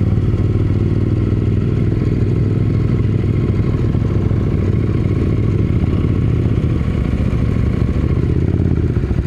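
KTM 890 Adventure R's parallel-twin engine running steadily while riding along a sand track, heard from a helmet-mounted camera.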